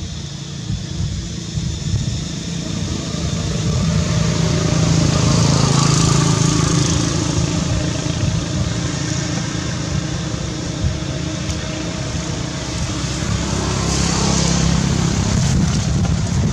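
Steady engine hum of passing motor vehicles, swelling louder about a quarter of the way in and again near the end.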